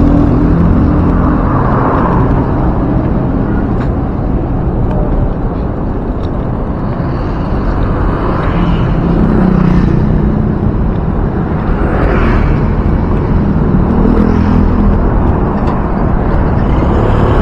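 Road traffic and wind noise on the microphone of a camera riding on a moving bicycle: a steady loud rumble, with motor scooters rising and fading as they pass, about halfway through and again near the end.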